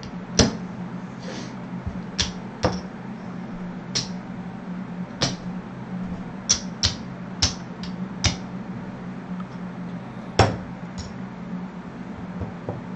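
Casino chips clicking against each other as they are picked up, stacked and set down on a craps table layout, in scattered single clicks, several in quick succession partway through. A steady low hum lies under them.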